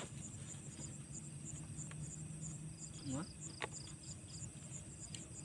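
Night insects chirping steadily: a high, evenly repeating chirp about two to three times a second, with a second, lower pulsed trill alongside.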